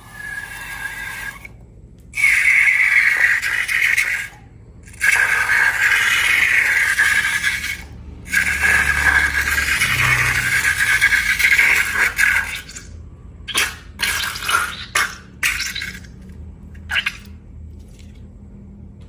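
Liquid being poured into a container, in three long pours and then a few short spurts near the end.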